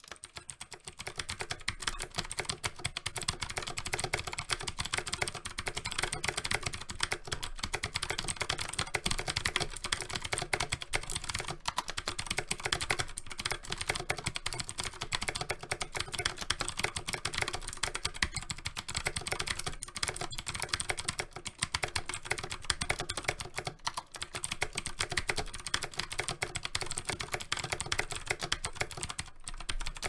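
Continuous fast typing on a Havit Magic Eagle HV-KB366L mechanical keyboard fitted with Outemu Blue clicky switches: a dense, steady stream of key clicks and keystrokes.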